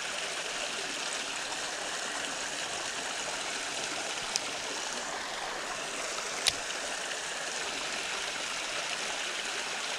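Creek water running with a steady rushing sound, broken by two short sharp clicks, one about four seconds in and a louder one about two seconds later.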